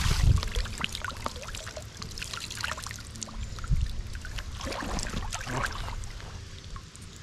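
Water splashing and trickling, with scattered irregular clicks and splashes, loudest right at the start.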